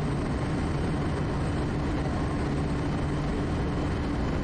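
Quest Kodiak's PT6A turboprop engine and propeller running steadily in flight, a constant noise with a low hum and rushing air.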